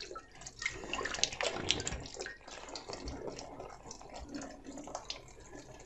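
Hands kneading and pressing a soft ball of dough on a floured counter, giving irregular soft squishing and patting sounds.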